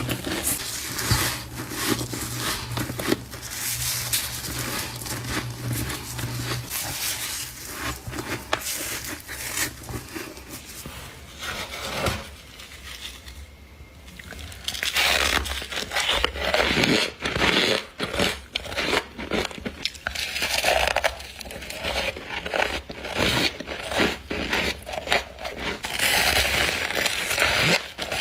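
Close-up crunching of humidifier frost being bitten and chewed: many crisp, crackly bites in quick succession, with a short lull about halfway through.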